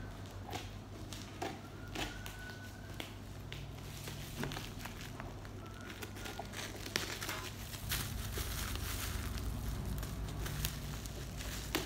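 Scissors cutting through tape and black plastic bubble wrap on a parcel, the wrap crinkling and crackling as it is handled and pulled open. The crinkling gets busier in the last few seconds.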